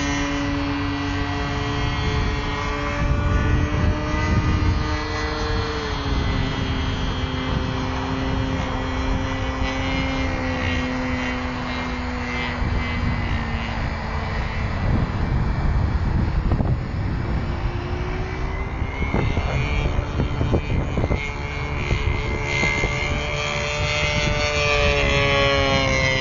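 MVVS 26cc two-stroke petrol engine and propeller of a radio-controlled P-47D Thunderbolt scale model in flight, a steady buzzing drone. The note drops in pitch about six seconds in, fades as the plane flies far off, then rises in pitch and grows louder again near the end as it comes back close.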